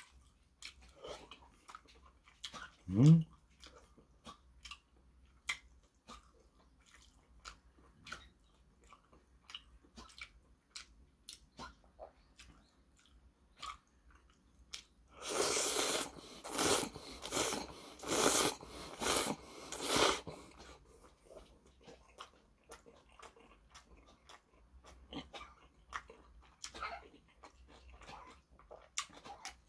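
A person eating noodles in soup: wet chewing and lip-smacking clicks throughout, then about halfway through a loud run of slurps, several pulls one after another, as the noodles are sucked up. A short rising sound about 3 s in is the loudest single moment.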